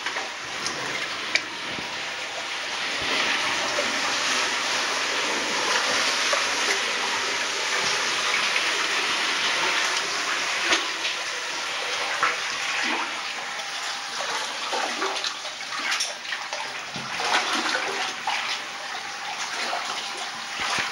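Water sloshing and splashing steadily as a caver moves through a flooded low cave passage, with many small splashes and knocks.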